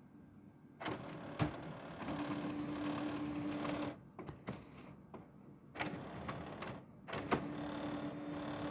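Brother MFC-L3750CDW colour laser printer running its warm-up cycle: the internal motors run in stretches with a steady hum, stopping and starting again twice, with sharp clicks as the mechanism engages.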